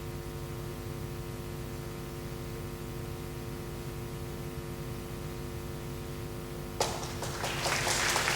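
Steady electrical mains hum with a faint hiss from the hall's sound system. Near the end, a sudden rush of noise starts and grows louder.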